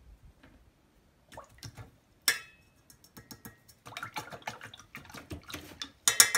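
A paintbrush being rinsed in a jar of water, knocking against the jar: scattered clicks at first, a busier rattle from about four seconds in, then a fast run of loud, sharp ringing taps near the end.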